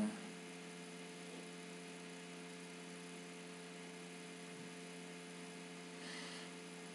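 Faint steady electrical hum with a light hiss underneath: the background noise of the recording.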